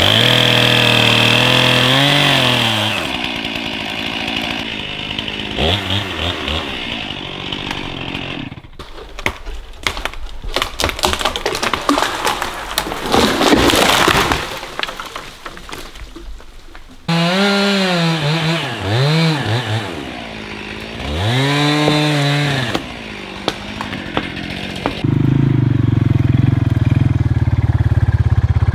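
Stihl chainsaw at full throttle cutting through a standing dead spruce, then running slower. Then comes a run of cracks and snaps as the trunk gives way, building to the crash of the tree coming down about halfway through. After that the saw is revved up and down a few times, and near the end an ATV engine idles steadily.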